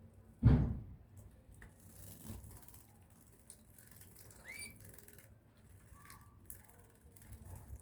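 A loud thump about half a second in, then small taps and rustles, and a single short chirp from a small pet bird a little past the middle.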